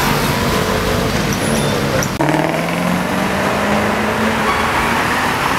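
Motor vehicle engines and street traffic noise. The sound breaks off abruptly about two seconds in and resumes as a steady engine drone that rises slightly in pitch.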